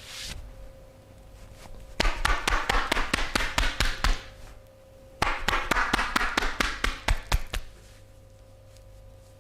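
Hands rapidly striking a person's body in percussive massage, about seven slaps a second. It comes in two runs of roughly two seconds each, with a short pause between them.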